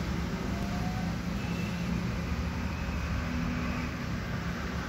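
Steady low background rumble with a faint hum, unchanging throughout.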